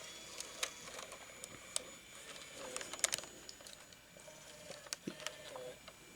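Hi8 tape cassette being put back into a Sony CCD-TRV99 camcorder: a string of small, quiet plastic clicks and knocks as the cassette and its compartment are handled and closed.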